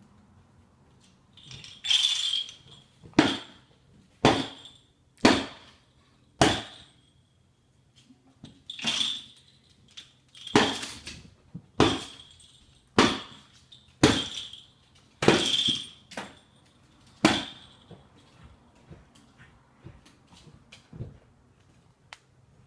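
Repeated loud knocks and clatters of a hard object, about a dozen at irregular intervals of roughly a second, each with a short ringing clink; a few are drawn-out rattles. Fainter taps follow near the end.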